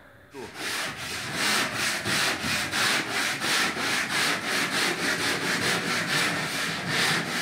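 Hand sanding float with abrasive mesh rubbing over dried starter putty on a plasterboard ceiling: quick, even back-and-forth scraping strokes, starting about half a second in. This is the rubbing-down between coats that knocks off the ridges and drips the first putty layer leaves.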